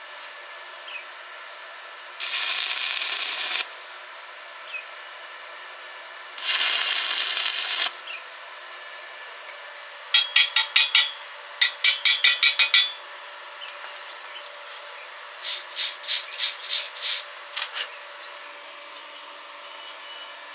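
Two steady hissing bursts of about a second and a half each, then a quick run of sharp rasping strokes at about five a second, followed by a softer run of similar strokes near the end.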